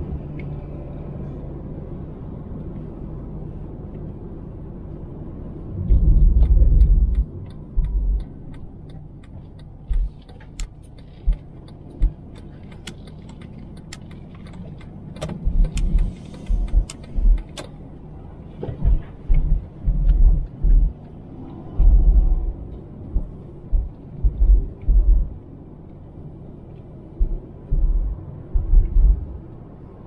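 Road noise inside a moving car's cabin: a steady low rumble from engine and tyres. From about six seconds in there are irregular low, heavy thumps, and in the middle a stretch of light clicking and rattling.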